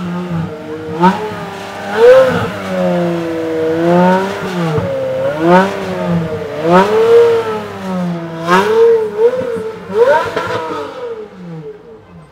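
Pagani Zonda's Mercedes-AMG V12 revving as the car pulls away at low speed, its pitch rising and falling again and again with throttle blips. It fades near the end as the car drives off.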